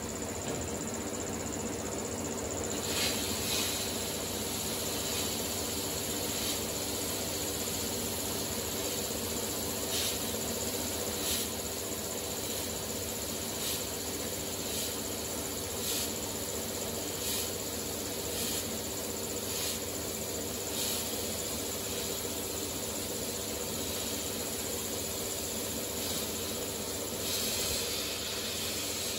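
Sandblaster gun blasting abrasive inside a blast cabinet, stripping paint and rust off a steel belt cover: a steady hiss of air and grit, with short, brighter bursts every second or two.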